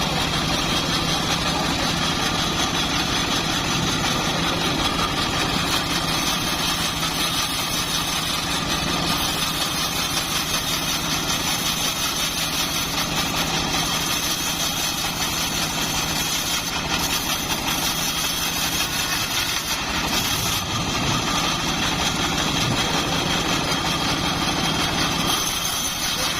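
Homemade bandsaw mill running steadily, a constant machine drone with no let-up.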